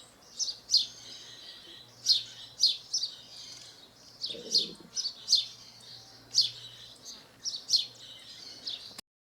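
House sparrow chirping: a series of short, sharp, downward-sweeping chirps, roughly one or two a second, cutting off suddenly near the end.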